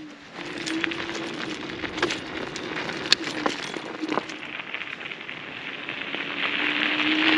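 Electric stand-up scooter riding toward the camera on a gravel road. Tyre hiss and a steady motor whine grow louder over the last few seconds. Before that come scattered sharp clicks and light clinks.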